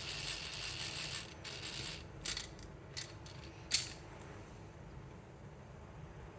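Acrylic (PMMA) fidget spinner spinning on its bearing with a high whirring rattle, then a few sharp clicks over the next couple of seconds before it goes quiet.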